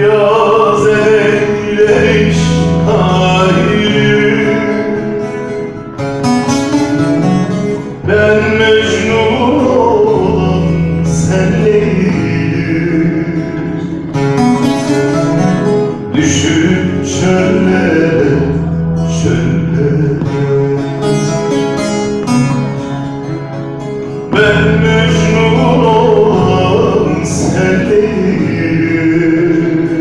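Turkish folk music played live: a plucked long-necked string instrument over low sustained bass chords, with a man singing in places.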